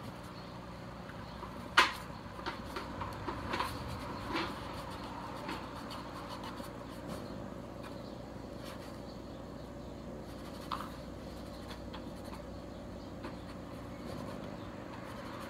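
Handling sounds of a helmet being wiped down with a rag: soft rubbing with scattered taps and clicks, the sharpest about two seconds in, over a steady low hum.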